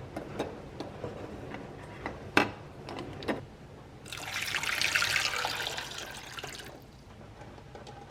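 Water running from a kitchen tap for about two and a half seconds, swelling and then easing off, after a few light knocks and clicks, one of them sharper.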